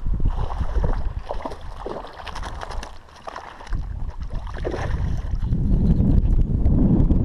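Water splashing and swirling as a hooked bass fights at the surface close to the bank, with wind rumbling on the microphone, heaviest near the end.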